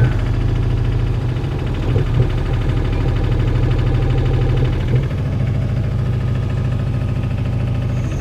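Three-cylinder diesel engine of a Komatsu PC28UU mini excavator running at a steady speed. Its owner suspects a bad injector or a stuck valve.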